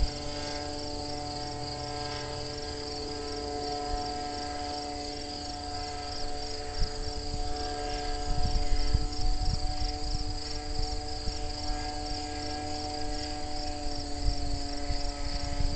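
Steady drone of a radio-controlled powered hang glider's motor and propeller high overhead. Crickets chirp in a rapid, even rhythm throughout, and wind gusts rumble on the microphone now and then.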